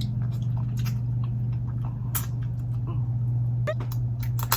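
Close-miked eating sounds: scattered short clicks and crackles of blue crab shell being cracked and picked, with mouth smacks, a few louder ones near the end. A steady low hum runs underneath.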